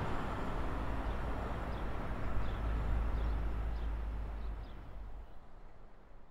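Steady low rumble of tracked excavators' diesel engines running on a demolition site, with no hammering, fading out over the last couple of seconds.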